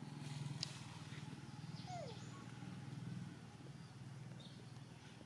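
Faint animal calls: a short falling squeak about two seconds in and a few brief high chirps later, over a steady low hum.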